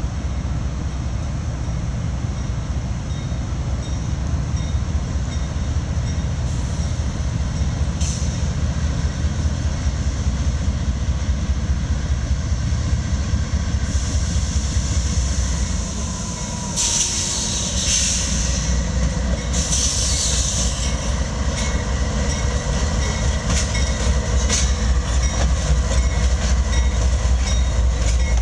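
CSX freight train's diesel locomotives approaching and then passing close by, a steady low engine drone that grows louder as they near.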